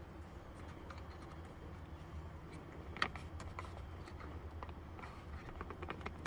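Light clicks and taps of a car door handle and its latch rod being handled, with one sharper click about three seconds in as the rod is fitted to the new handle, over a low steady hum.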